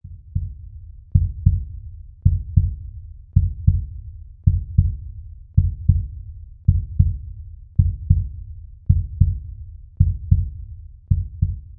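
Heartbeat sound effect: deep, low thumps in lub-dub pairs, a pair a little more than once a second, steady and even.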